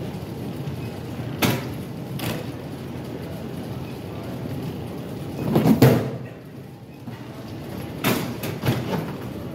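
Steady airport-terminal background noise, broken by a few sharp clicks and knocks of handling, with the loudest knock and rustle a little over halfway through and another cluster of knocks near the end.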